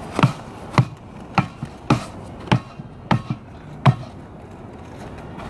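A sandaled foot kicking a stack of spare tires, about eight dull thumps at roughly one every 0.6 s, stopping a little under four seconds in.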